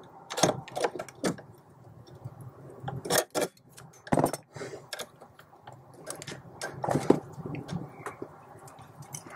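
Irregular small metallic clicks and clinks of a hand tool and metal parts as the clevis pin and cotter pin are fitted where the clutch master cylinder push rod joins the pedal.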